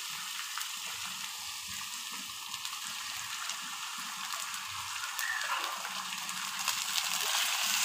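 Hot cooking oil sizzling steadily in a pot of frying sliced onions, with raw chicken pieces being added to it.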